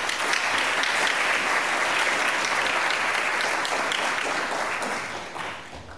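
Audience applauding, a steady patter of many hands clapping that fades away near the end.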